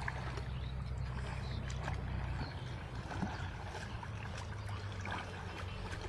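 River water sloshing and splashing as people wade through it and push a bamboo-framed push net, with small scattered splashes over a steady low rumble.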